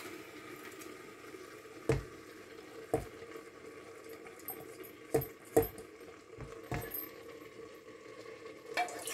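Wooden spatula scraping oats and lentils out of a steel bowl into a pressure cooker, with about five short knocks of the spatula and bowl against the rim, over a faint steady sizzle of vegetables cooking in the pot.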